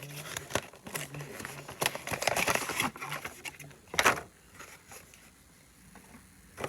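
Plastic blind-bag wrapper being torn open and crinkled by hand: a run of rustling about two to three seconds in and a sharp crackle at about four seconds, then quieter handling.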